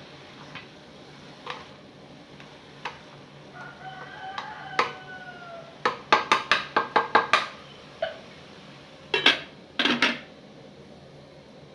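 A rooster crows in one long, slightly falling call about four seconds in, among scattered light clicks. A quick run of about eight sharp knocks follows, then two louder rough bursts near the end.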